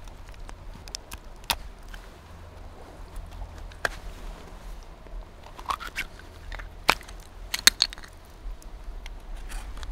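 Raw oyster being shucked with a knife: scattered sharp clicks, cracks and scrapes of blade on shell, the loudest few coming close together about seven to eight seconds in.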